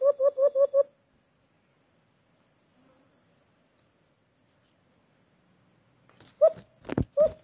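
A person imitating the call of the white-eared brown dove as a lure: a fast run of short hooting notes, about six a second, that breaks off about a second in and starts again near the end. A single low thump comes shortly before the calling resumes.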